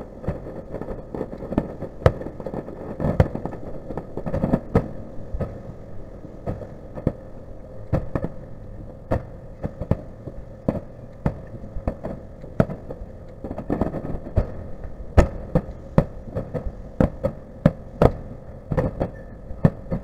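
Fireworks shells bursting in a rapid, irregular run of sharp bangs, several a second, coming thicker in the second half, over a steady hum.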